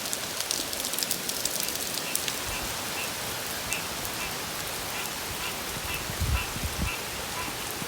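Heavy hurricane rain falling steadily, with close drops pattering in the first few seconds and a brief low rumble about six seconds in.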